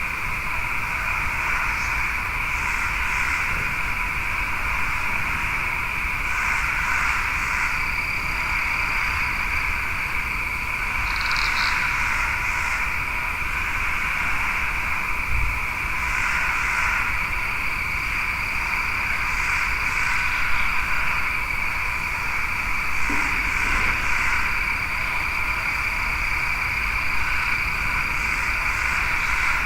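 Night chorus of frogs and insects: a dense, unbroken trilling, with short high chirps in clusters of two or three every few seconds. A thin, steady high whine joins after about eight seconds.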